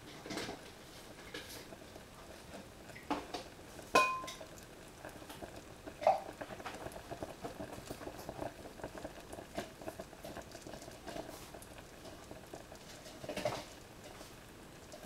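Pans simmering on the stove, a steady bubbling patter with many small irregular ticks. A sharp metallic clink with a short ring comes about four seconds in, and a smaller one about two seconds later.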